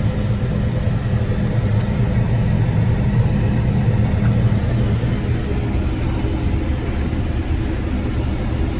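John Deere 9770 combine running steadily while harvesting soybeans, heard from inside the cab as an even, loud low drone of engine and machinery.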